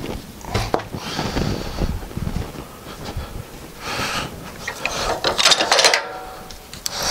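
Sawn wooden boards being shifted by hand on a sawmill bed: several short scrapes and knocks of wood against wood.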